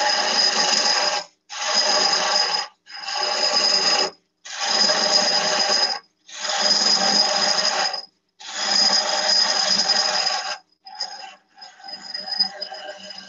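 Woodturning gouge cutting a spinning wooden spindle on a lathe in six passes, each a second or two long with short silent gaps between, a steady high ringing tone running through each cut. After about eleven seconds the cutting becomes quieter and more broken.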